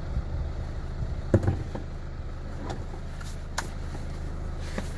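Clicks and knocks of a plastic footwell trim panel being handled and pried off under a car's dashboard, the loudest a sharp knock about a second and a half in, over a steady low hum.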